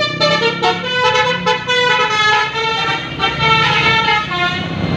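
Indonesian 'telolet' Basuri multi-tone bus horn playing a rapid tune of short notes stepping up and down in pitch, the tune ending near the end.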